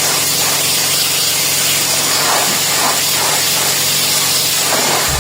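Electric pressure washer spraying a high-pressure water jet: a steady loud hiss with the motor's even hum underneath.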